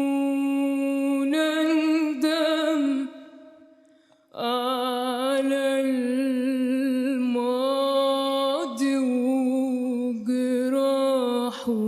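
A woman singing unaccompanied in Arabic tarab style, drawing out long held notes with ornaments and vibrato. She breaks off for a breath about three seconds in, then sings on.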